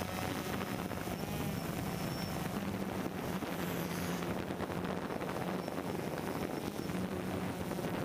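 DJI Phantom quadcopter's motors and propellers buzzing steadily, heard from the camera on board, with a constant low hum under a hiss and wind rushing over the microphone.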